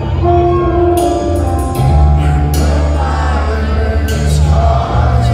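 Heavy metal band playing live through a concert PA, heard from the crowd: a loud, boomy low end with cymbal crashes about every second and a half, and a male singer holding notes.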